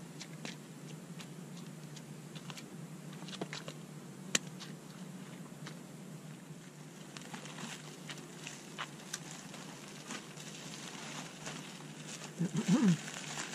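Plastic bags rustling, with scattered small clicks from handling, over a low steady hum; one sharp click about four seconds in, and a brief voice sound near the end.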